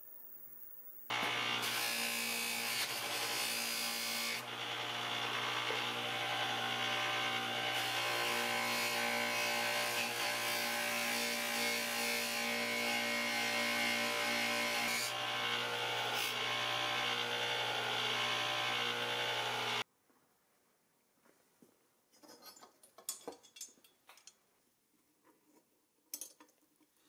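Bench grinder spinning a cotton buffing wheel while a small metal part is held against it: a steady motor hum under a loud rubbing hiss that shifts as the part is worked. It cuts off suddenly, and is followed by faint clicks of small metal parts being handled on a wooden bench.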